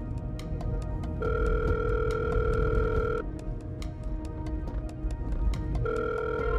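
Telephone ringing tone on a call: a steady tone that sounds for about two seconds, stops, and sounds again near the end, over background music with a steady beat.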